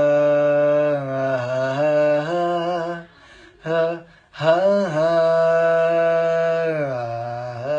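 A male voice singing unaccompanied, holding long drawn-out 'haan' notes with small ornamental pitch turns. After about three seconds it breaks off, gives a short note, then holds another long note that slides down near the end.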